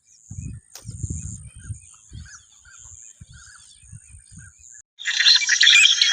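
Faint bird chirps over low muffled bumps, then, about five seconds in, a sudden loud, dense chorus of animal calls.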